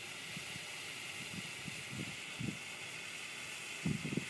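Color torch firework burning with a steady hiss. Scattered low thumps come through, growing louder near the end.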